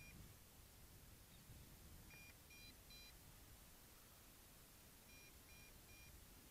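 Faint sets of three short, high-pitched beeps, a set about every three seconds, from the MJX Bugs 5W drone's radio transmitter, signalling that return to home has just been engaged.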